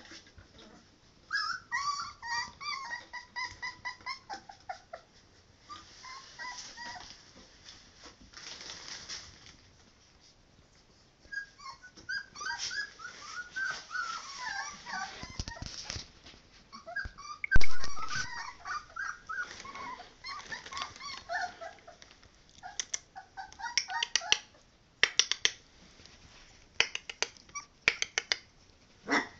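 Three-week-old puppies whimpering and yelping in short, high-pitched cries that come in several bursts. A single loud knock sounds about two-thirds of the way through, and a few sharp clicks come near the end.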